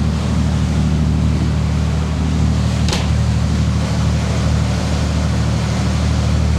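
Motor yacht's inboard diesel engines running steadily under way at cruising revs, a deep, even drone, with a single short click about three seconds in.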